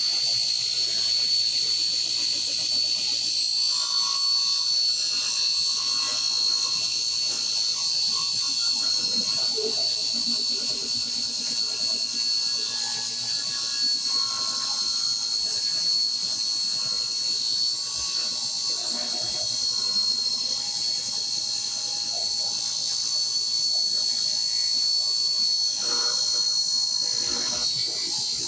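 1970s Craftsman 113.226680 direct-drive table saw ripping a poplar board, a steady high-pitched whine of the blade and motor over the hiss of the cut. The hardwood loads the under-powered saw, which is having a little trouble keeping up with the feed.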